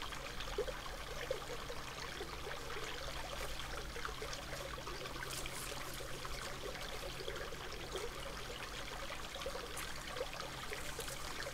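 Steady rush of flowing river water picked up by a trail camera's microphone, with a few faint ticks and rustles and a steady low hum underneath.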